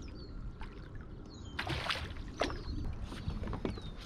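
Water splashing around a kayak during topwater bass fishing, with light clicks and a louder splash about one and a half seconds in. A few short falling whistles sound high above it.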